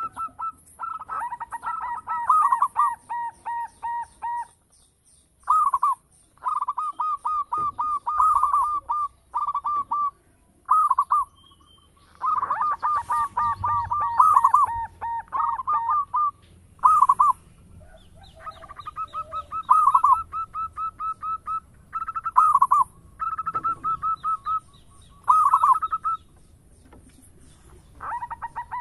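Local-strain zebra dove (perkutut) singing: phrases of rapid, repeated coo notes, each one to three seconds long, with short pauses between them.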